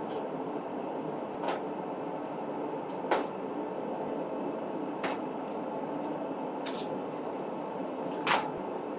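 Steady running noise of a shop heater, with five short sharp knocks spaced about a second and a half apart as engine stand parts are handled.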